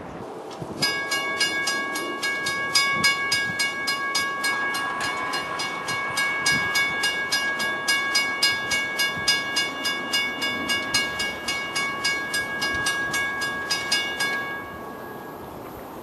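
Railroad grade-crossing bell ringing rapidly, about four strikes a second, starting about a second in and stopping shortly before the end: the crossing signals are activated for an approaching train.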